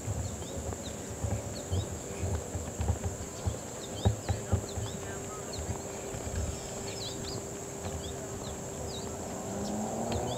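Steady high-pitched drone of crickets or similar insects, with scattered short bird chirps, over irregular low thuds of footsteps on a path about twice a second.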